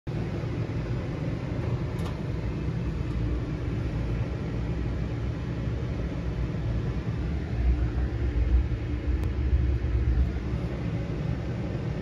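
GE GTUP270EM2WW stackable washer running on its spin setting with water still standing in the tub: a steady low rumble, a little louder for a few seconds near the end. The washer is failing to drain.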